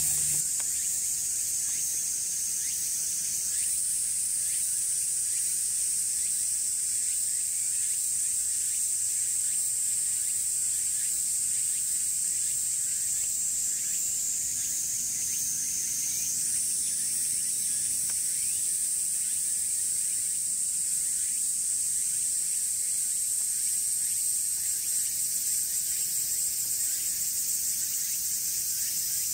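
Chorus of cicadas: a steady, shrill, high-pitched drone that steps up in pitch a few seconds in and again about halfway through.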